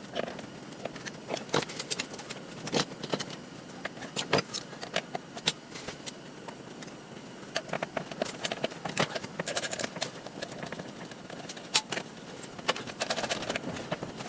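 Irregular metal clicks and clinks of hand tools and loose parts as a garage door opener is taken apart.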